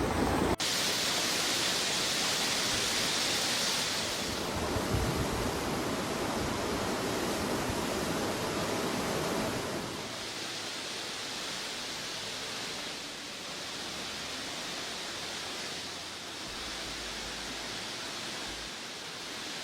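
Steady rushing noise of water, shifting in level and tone several times and quieter from about ten seconds in.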